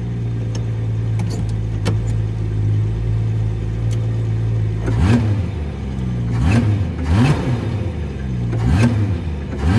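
Car engine idling steadily, then blipped with about four quick revs in the second half, each rising in pitch and falling back to idle.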